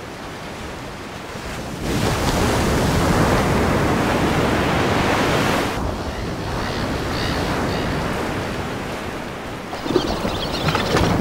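Small ocean waves breaking and washing up a beach, with wind buffeting the microphone. The wash grows louder about two seconds in and eases a little after about six seconds, and there is a brief knock near the end.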